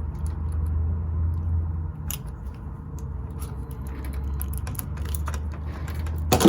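Small clicks and handling noises from a 9-volt battery being fitted to its snap connector and worked into a keypad door lock, over a steady low hum. A louder sharp knock comes at the end.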